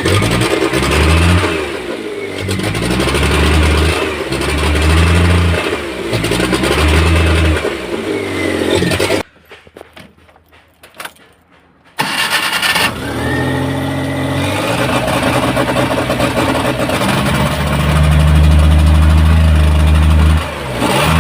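Maruti Omni's 796 cc three-cylinder petrol engine being revved in repeated blips of the accelerator, running cleanly now that new spark plug cables have cured its crank-but-no-start fault. About nine seconds in the sound cuts out for a few seconds, then the revving resumes with one long rev near the end.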